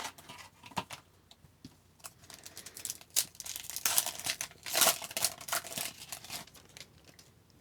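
Trading card pack wrapper being torn open and crinkled by hand, a few light clicks and then a busy crackling run that peaks a little past the middle and dies away near the end.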